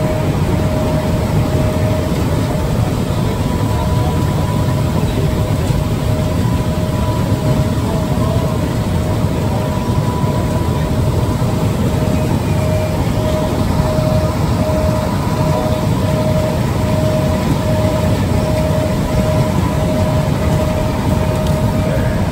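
Potato-handling machinery and conveyor belts running with a steady, loud low rumble and a steady tone. About halfway through, the tone turns into regular beeps, roughly one and a half a second.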